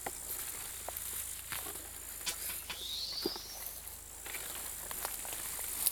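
Fireweed leaves being stripped by hand from their stems: a run of dry rustles and small snaps, with a short rising whistle about three seconds in.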